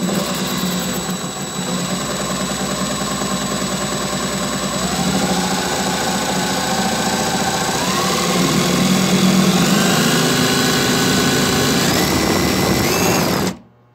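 DeWalt 1/4-inch impact driver running with a glass-and-tile bit, boring a hole through a sheet of 3/16-inch glass. The motor runs steadily, its pitch rising in several steps, then stops abruptly shortly before the end.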